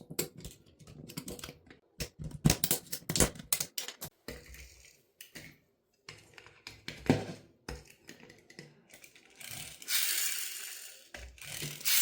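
Toy car being crushed into pieces: an irregular run of sharp cracks and snaps, then two longer gritty crunching stretches near the end.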